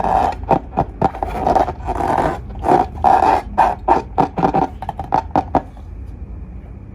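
Slime and balloons being squeezed and worked by hand: quick wet clicks, crackles and squishes in rapid succession, stopping about five and a half seconds in.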